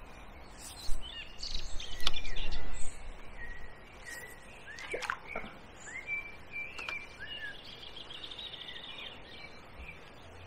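Wild birds singing: short chirps and whistles, with a rapid trill about eight seconds in. A low rumble and a couple of knocks come in the first three seconds.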